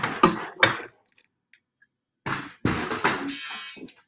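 Knocks and scraping from studio lighting gear being moved and adjusted, a cluster of clunks just after the start and more near the end. A short buzzy tone sounds for under a second near the end.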